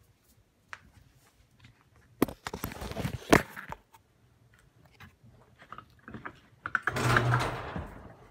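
Irregular clicks and scuffing, rubbing noises, with two louder stretches of rustling about two seconds in and near the end.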